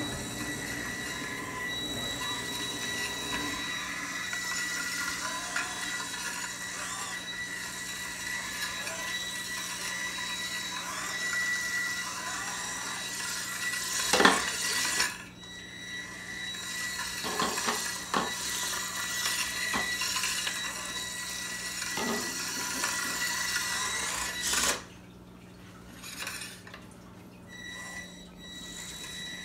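Fingertech Viper antweight combat robot driving on a granite countertop: its small drive motors whine with a steady high tone while the wheels and chassis clatter and knock on the stone. There is a sharp knock about fourteen seconds in, and the sound drops lower near the end.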